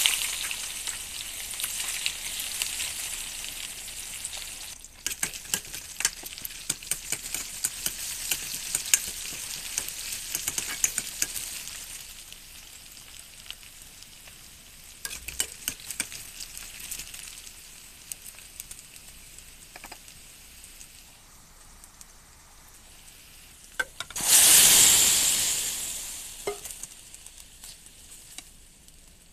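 Sliced onions, bay leaves and dried red chillies sizzling in hot oil in an iron kadhai, with many sharp clicks and scrapes of the spatula as they are stirred; the sizzle slowly dies down. About 24 seconds in, a sudden loud hiss as cooked black urad dal is poured into the hot tempering, fading over a few seconds as it is stirred.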